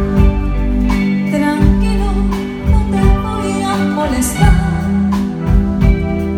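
Live band of drum kit and electric guitar playing a slow song through a PA while a woman sings into a microphone, with regular drum strokes under her sustained sung lines.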